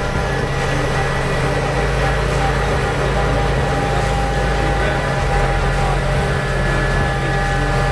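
Steady low drone of heavy mining machinery: the large diesel engines of a Komatsu PC8000 hydraulic excavator working beside a CAT haul truck.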